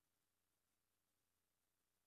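Near silence: only a faint, even electronic hiss.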